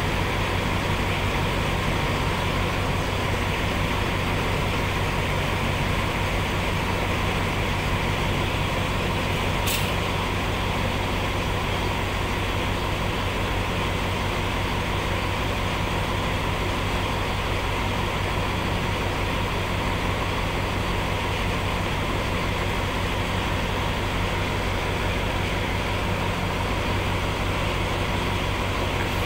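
Diesel engine of a stationary passenger train idling steadily, heard from a coach of the train, with one brief hiss about ten seconds in.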